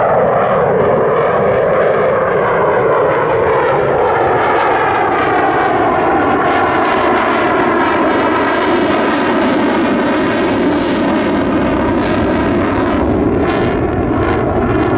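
F-35A fighter's single F135 jet engine running loud and steady as the jet passes, its tone sliding downward over the first few seconds, then turning rough and crackling in the middle. The afterburner is lit near the end.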